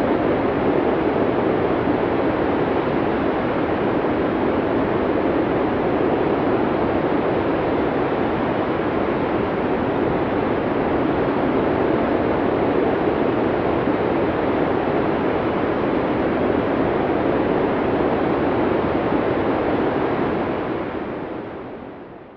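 Steady snowstorm wind noise, an even rush with no distinct events, fading out over the last two seconds or so.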